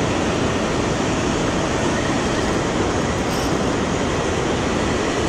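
Steady, even rush of water pouring over a low-head dam spillway and churning through the turbulent river below it.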